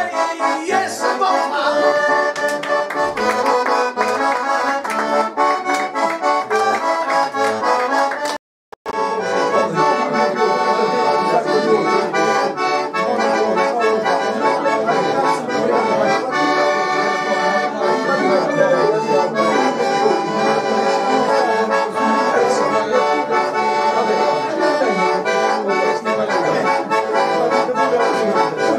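Giustozzi organetto (diatonic button accordion) playing a lively traditional folk tune, with a very short dropout about eight and a half seconds in.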